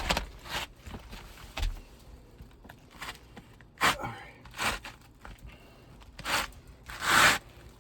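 Footsteps and scuffs on an asphalt shingle roof: a handful of short, irregular scrapes, the loudest one near the end.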